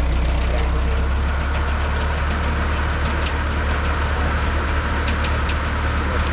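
Portable sawmill's engine running steadily with a deep hum, and a higher hiss that comes up about a second in.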